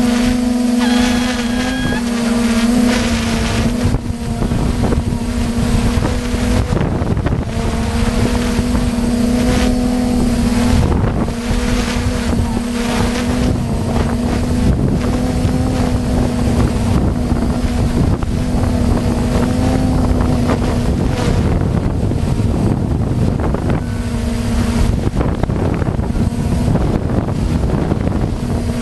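A motor drones at a steady pitch, with wind buffeting the microphone. The drone drops out briefly a few times.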